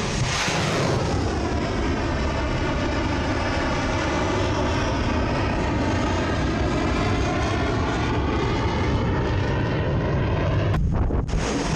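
Steady roar of a Kalibr cruise missile's engine in flight, with a sweeping whoosh that dips and rises again in pitch as it passes.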